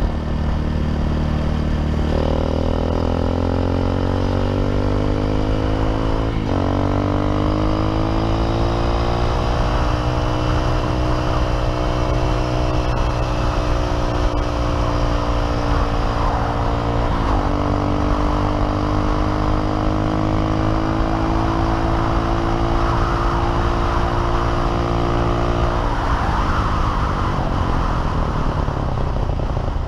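Honda CRF230F's single-cylinder four-stroke engine pulling hard. Its pitch climbs from about two seconds in, breaks briefly for upshifts about six and seventeen seconds in, holds steady at speed, then drops near the end as the throttle closes. Wind rushes over the microphone.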